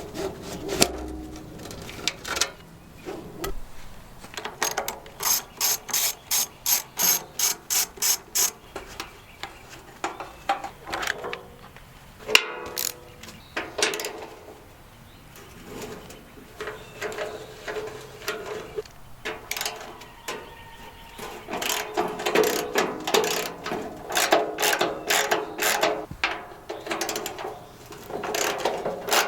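Hand ratchet wrench clicking through runs of strokes as fasteners are turned, with one sharp metal knock about halfway.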